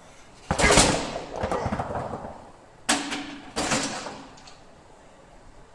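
Heavily loaded plate-loaded leg press sled clanking: three sharp metal bangs, about half a second in, near three seconds and again just after, each ringing briefly as the stacked weight plates and sled knock together.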